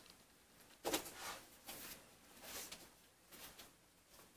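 Faint rustling of paper script pages being handled and turned, in a few short rustles.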